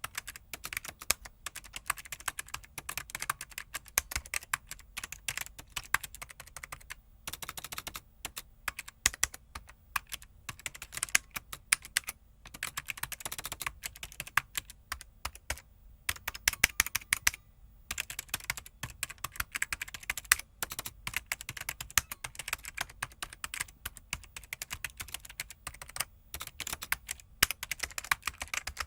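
Fast typing on a computer keyboard: a rapid stream of key clicks in runs, broken by brief pauses every few seconds.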